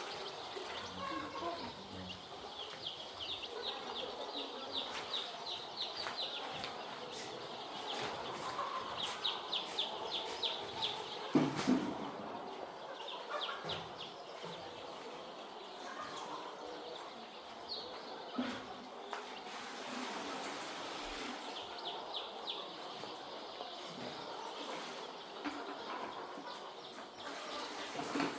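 Flock of chickens peeping in quick runs of short high chirps, with a single sharp knock about eleven seconds in.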